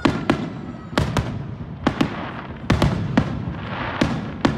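Aerial firework shells bursting: a string of about ten sharp bangs, one or two a second, with a burst of crackling around four seconds in.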